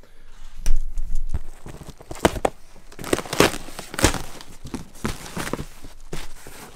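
Cardboard shipping box and bubble-wrap packing being handled, with irregular rustling, crinkling and scraping.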